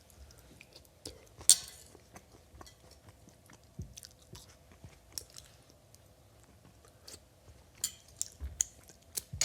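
A person eating noodles with crispy bacon, close up: quiet chewing with scattered mouth clicks and small knocks, a sharper click about a second and a half in and a few more near the end.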